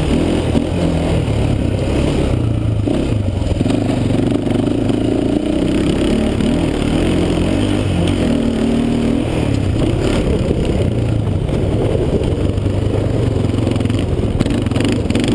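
Quad ATV engine running while riding over a dirt track, its revs rising and falling.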